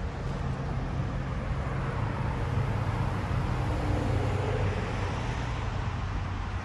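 Steady road-traffic noise from cars and motorway vehicles, swelling a little midway through.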